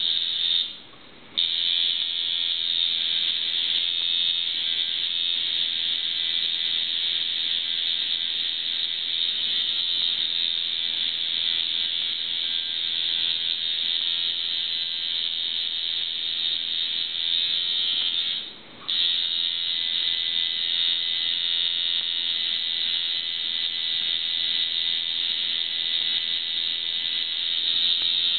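Tattoo machine buzzing steadily as it works, cutting out briefly about a second in and once more about two-thirds of the way through.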